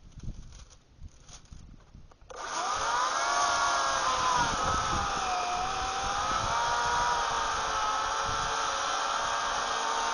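Oregon CS1500 corded electric chainsaw switching on about two seconds in and running steadily, cutting into a yucca trunk, its motor whine wavering up and down in pitch.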